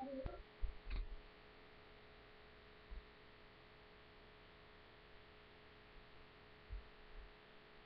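Steady electrical hum in a quiet room, with a few soft low thumps and a single sharp click about a second in.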